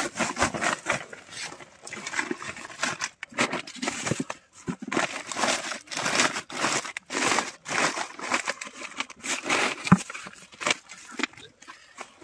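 Woven plastic pig-feed sacks crinkling and rustling in irregular bursts as hands open one and dig into the feed. A sharp knock about ten seconds in.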